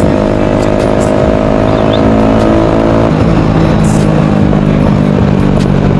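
Bajaj Pulsar 135 single-cylinder engine running through a loud modified aftermarket exhaust while the bike is ridden slowly. The engine note steps down to a lower pitch about halfway through.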